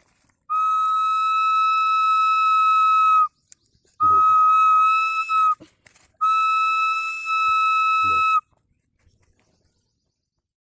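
Homemade bamboo whistle blown in three long, steady blasts on one high note. The first lasts about three seconds and the next two are shorter.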